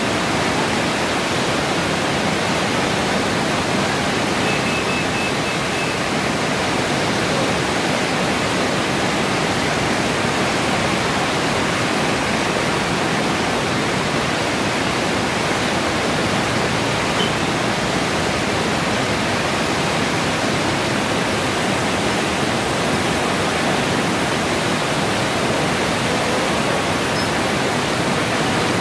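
The Tinau river in flood: a steady rush of fast, churning muddy floodwater.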